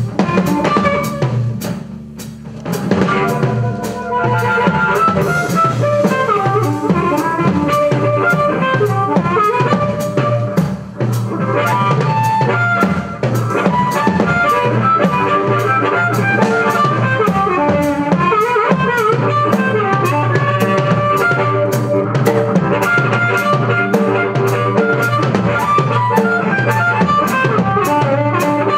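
Blues band playing live: a drum kit keeps a steady beat with regular cymbal strokes under bass and pitched instruments. The band briefly drops in level about two seconds in, then plays on at full volume.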